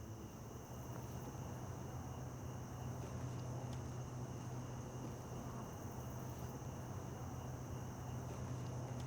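Night-time insect ambience: crickets chirping in a steady high drone, over a faint low hum.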